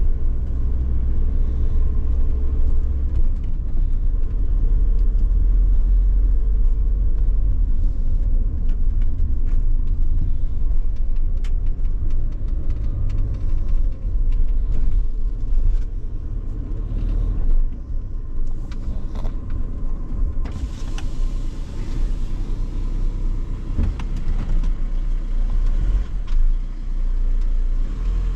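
VW Crafter camper van driving slowly, heard from inside the cab: a steady low engine and road rumble with small rattles. A brighter hiss joins about two-thirds of the way through.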